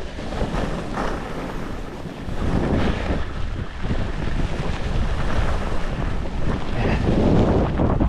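Wind rushing over the microphone of a skier moving downhill, heavy and buffeting in the lows. Over it, skis hiss and scrape on the snow, swelling every second or two with the turns.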